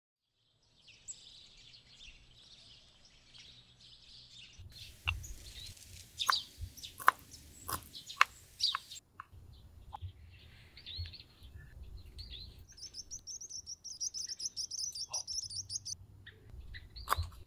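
Birds chirping and twittering, with a fast run of high repeated chirps about two-thirds of the way through. Scattered light clicks and taps sound over them.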